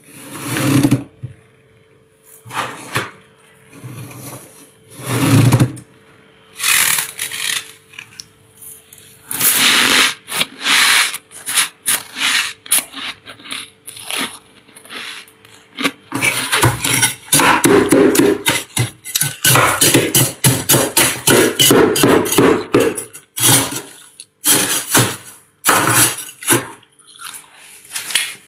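Thick frost buildup inside a freezer being crushed and broken loose by a finger and a scraper, giving a run of irregular crisp crunches. They come spaced out at first, then pack almost continuously through the middle stretch, then thin out again.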